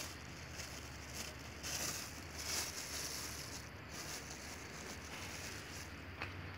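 A thin plastic bag crinkling in the hands in a few short spells, with a sharp click near the end, over a steady low rumble.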